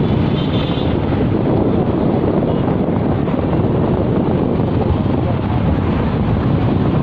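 Wind buffeting the microphone of a phone filming from a moving vehicle, over the steady low rumble of its engine and the surrounding traffic.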